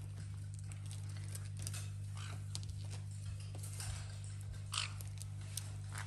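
Caique parrots playing with a plush toy: scattered small clicks and scuffs of beaks biting and tugging at the fabric, with a few brief sharper sounds, the loudest about three-quarters of the way through, over a steady low hum.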